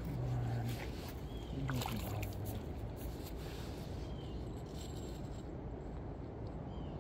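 Outdoor background noise: a steady low rush, with clicks and rustles of handling and two short low hums in the first two and a half seconds, and a short high chirp about every three seconds.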